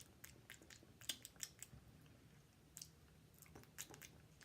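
Faint, irregular lip smacks and small mouth clicks of a person tasting a sauce.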